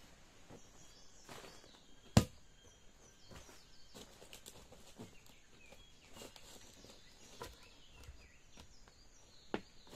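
Quiet outdoor ambience with scattered light clicks and knocks, one sharp knock about two seconds in and a smaller one near the end.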